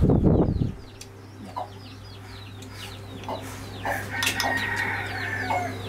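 Chickens in the background: chicks peeping over and over in short high falling notes, with a drawn-out fowl call from about four seconds in. A brief low muffled thump comes at the very start.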